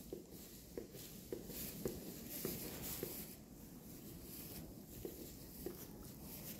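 Cotswold sheep gnawing at a whole pumpkin, its teeth knocking and scraping on the hard rind in short, irregular knocks, about one every half second in the first few seconds and a couple more later, over a scratchy rustle of straw as the pumpkin is shoved about.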